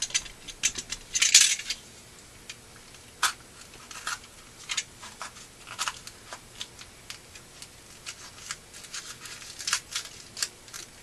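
Scattered small clicks and taps, with a short scraping rasp about a second in: hand tools working at a firework shell that is being cut open.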